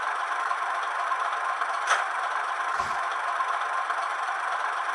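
Recorded Class 31 diesel engine idling, played by a Hornby HM7000 sound decoder through a model locomotive's small speaker: a steady, thin hum with no deep bass. A sharp click about two seconds in and a dull knock just under a second later.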